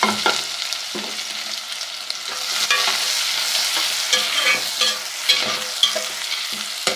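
Sliced onions sizzling as they fry in ghee, stirred with a spoon that knocks sharply against the pot a few times.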